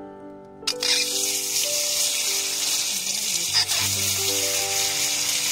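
Boiled eggs dropped into hot oil in a wok, starting a loud, steady sizzle suddenly about a second in, with a brief flare-up a couple of seconds later as another egg goes in.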